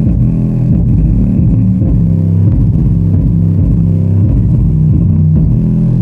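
Bass-heavy music played loud through two 8-inch subwoofers driven by a small 4440 amplifier with a subwoofer pre-amplifier. Deep bass notes change every fraction of a second, with very little treble.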